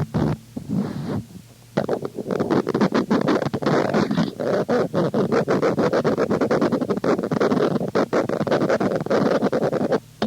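Experimental noise music: a dense, irregular texture of scratching and scraping with many sharp clicks. It drops out briefly near the start and comes back thick about two seconds in.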